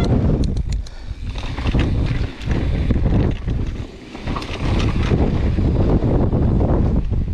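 Gale-force wind buffeting a GoPro's microphone, rising and falling in gusts, with a few sharp clicks about half a second in.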